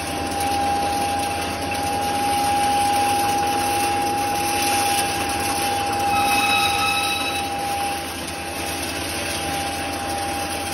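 3 HP maize grinder (pulverizer with cyclone) running steadily, driven by its electric motor, with a steady whine over the running noise; maize kernels are being drawn in through its suction hose. A brief higher whistle joins in about six seconds in.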